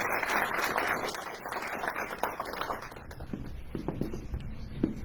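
An audience applauding, dying away about three seconds in; a few scattered knocks follow.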